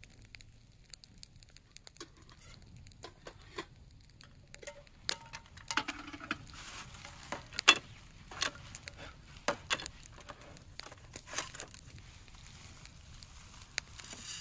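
Vegetables being washed with hot water poured from a kettle: light splashing and patter, plastic crinkling, and scattered knocks of a plate and kettle, busiest in the second half with one sharp knock about halfway through.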